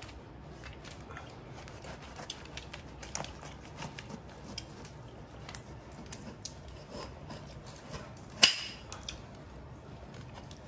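Large knife cutting into the thick, knobbly rind of a whole jackfruit: quiet, scattered crunches and clicks as the blade works along the fruit, with one sharper knock about eight and a half seconds in.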